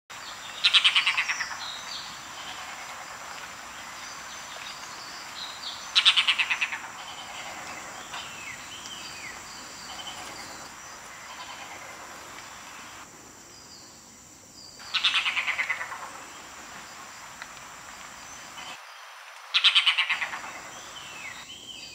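Red-bearded bee-eater giving four loud chattering calls several seconds apart, each a rapid run of harsh notes about a second long that falls in pitch. Softer chirps of other birds and a steady high-pitched whine run beneath.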